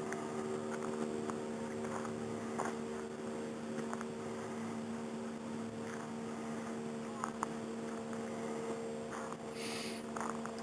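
A steady hum of several held tones, with a few faint ticks over it.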